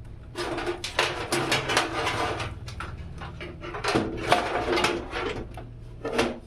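Handling noise: a dense run of irregular rustles and clicks, like packaging and hard parts being moved about, over a low steady hum.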